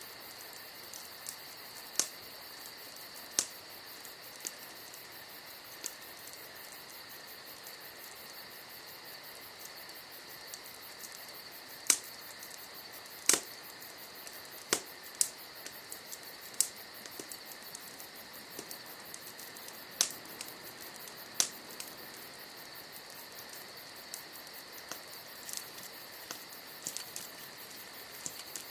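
Wood campfire crackling, with scattered sharp pops from the burning logs, over the steady high trill of crickets.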